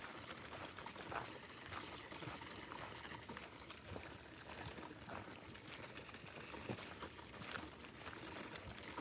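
Faint outdoor ambience: an even hiss with scattered light clicks and ticks, and no clear voice, bird or engine.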